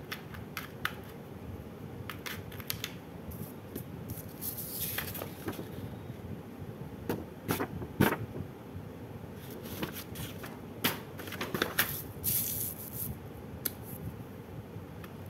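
Handling of a sheet of drawing paper: scattered taps and clicks with a few brief rustles as it is touched and pressed flat by hand.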